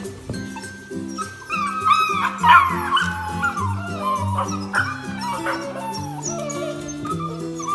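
Beagle puppies whining and yipping, high calls that bend and fall in pitch and come thickest in the middle, over background music.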